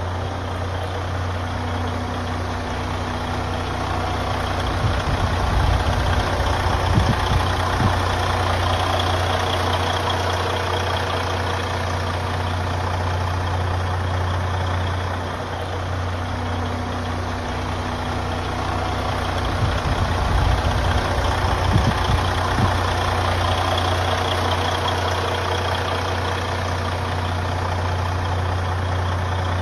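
Detroit Diesel DD16 inline-six diesel of a Western Star 4900 truck idling steadily. Twice, a louder low rumble swells over it for a few seconds, once a few seconds in and again past the middle.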